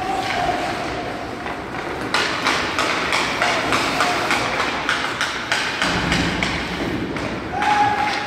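Ice hockey play in a rink: sticks and puck clacking on the ice and boards, with a quick run of sharp knocks from about two to six seconds in.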